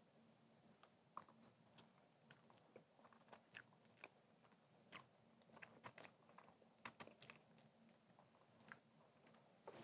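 Faint mouth sounds of someone eating rosé pasta noodles with chopsticks: scattered short, wet chewing smacks and clicks, made deliberately audible.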